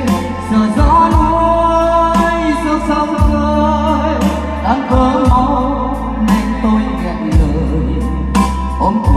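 A man singing into a handheld microphone over a backing track with bass and drums, played loud through a stage PA system.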